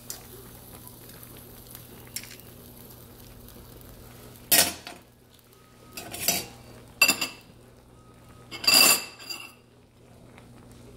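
Metal tongs clattering and scraping against an earthenware hot pot, four loud clashes with a metallic ring between about four and a half and nine and a half seconds in, over the steady bubbling of the boiling broth.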